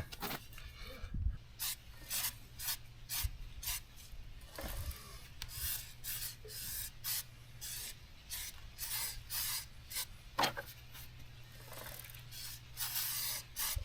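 An aerosol can of Motul chain lube spraying in many short, irregular hissing bursts onto a motorcycle drive chain; the can is almost empty.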